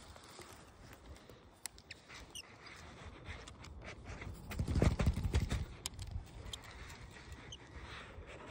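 Fishing rod and reel being handled: scattered light clicks and rubbing from the reel and line, with a louder low rumble about five seconds in.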